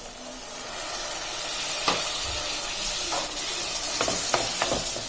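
Tomatoes and ground masala frying in oil in a pan, hissing and sizzling more strongly from about half a second in as a little water goes in. A spoon knocks and scrapes against the pan several times in the second half.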